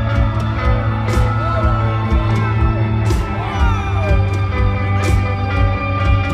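Live rock band playing: electric guitar over heavy bass, with a cymbal crash about every two seconds. A few crowd shouts rise and fall near the middle.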